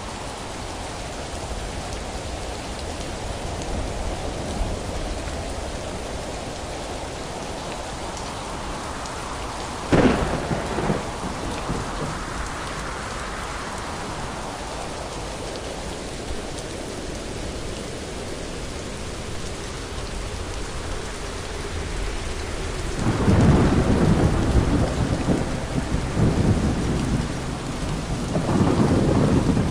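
Thunderstorm with steady rain. A sharp thunderclap comes about a third of the way in and is followed by a short rumble. Long, loud rolling thunder builds about two-thirds of the way through and swells again near the end.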